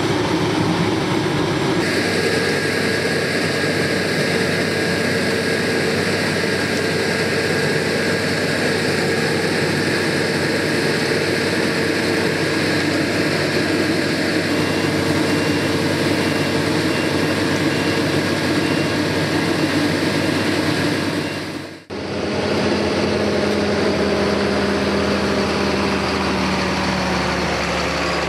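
Combine harvester's engine and threshing machinery running steadily while harvesting. The sound cuts out for a moment about 22 seconds in, then resumes with a lower tone that slowly falls in pitch.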